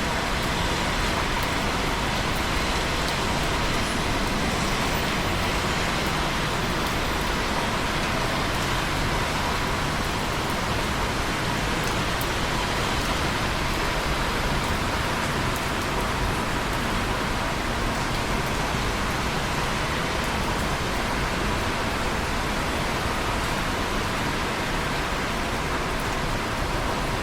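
Steady, continuous rain, an even hiss with faint scattered drop ticks.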